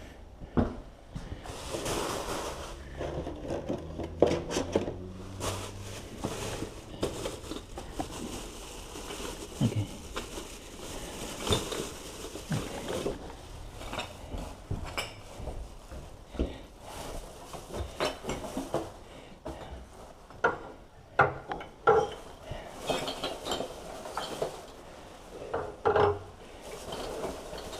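Household objects clattering and clinking as they are handled, with many scattered short knocks and bumps.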